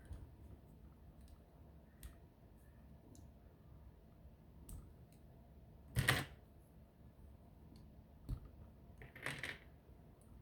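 Plastic Bionicle pieces clicking and snapping as a model is taken apart, in scattered small clicks, with a louder snap about six seconds in and a short clatter near the end.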